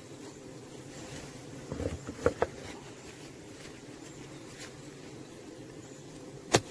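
Steady hum of a honeybee colony in an open hive, with a few sharp wooden clicks and knocks of hive frames being handled: a cluster about two seconds in and the loudest knock near the end.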